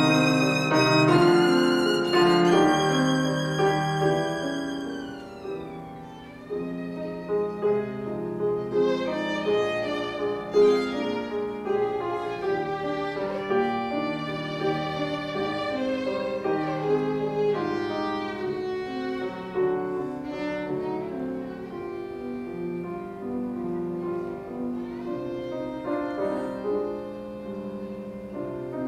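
Violin and grand piano playing a classical duet live. A held violin note with vibrato dies away about five seconds in, then the violin goes on with a melody over the piano.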